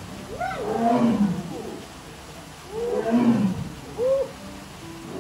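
Sumatran tiger roaring: two long, deep calls about two seconds apart, each rising and falling in pitch, then a short higher call near the end.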